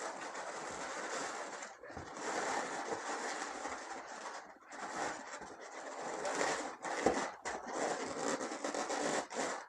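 Latex twisting balloons rubbing and scraping in the hands as they are twisted, a scratchy noise broken by a few short pauses.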